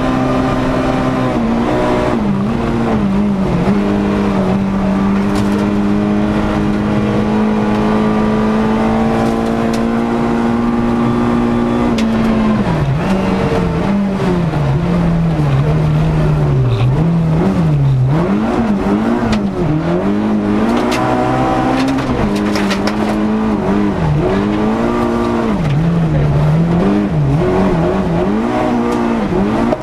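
Volkswagen Golf rally car's four-cylinder engine heard from inside the cabin, held at a steady high note for about ten seconds, then revs rising and falling over and over as the throttle is lifted and reapplied.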